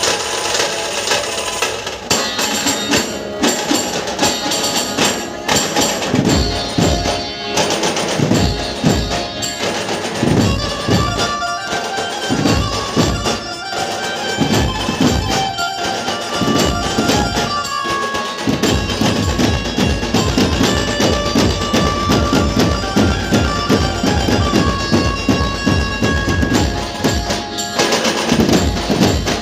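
Dhumal band music from Chhattisgarh: rapid, dense drumming with a held melody line over it, played loud.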